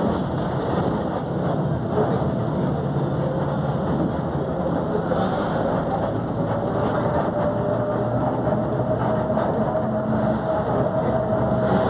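Volkswagen 17.230 OD bus under way, engine running, with a loud differential whine that climbs slowly in pitch and grows stronger over the second half.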